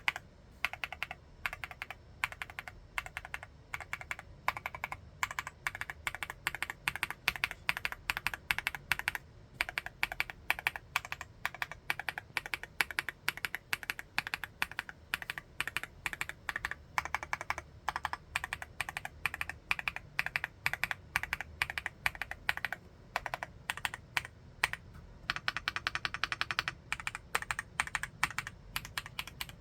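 Continuous fast typing on an MCHOSE GX87 full-aluminium tenkeyless mechanical keyboard with TTC Flaming Orange switches, a steady stream of key strikes. A denser, quicker flurry of keystrokes comes near the end.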